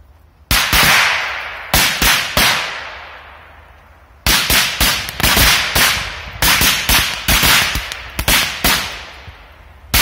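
A pack of Golden Dragon Korsar-1 firecrackers going off in a chain: about twenty sharp bangs at irregular intervals, some single and many bunched close together, each trailing off in a fading echo.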